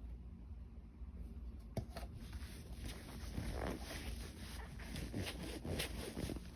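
Hands kneading filter oil into a foam dirt-bike air filter: irregular wet squishing and rubbing, with a sharp click about two seconds in.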